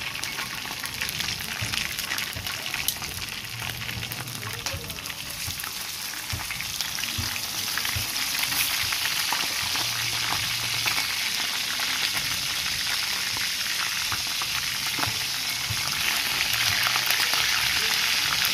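Chicken pieces, raw chicken among them, frying in hot oil in a wok: a steady sizzle with many small crackling pops. It grows louder about seven seconds in.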